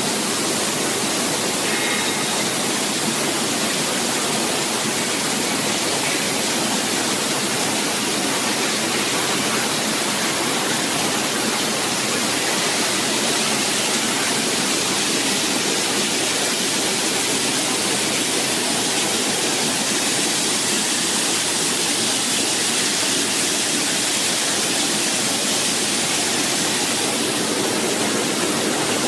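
Bubble-type fruit and vegetable washing machine running, its tank water churned steadily by air bubbles.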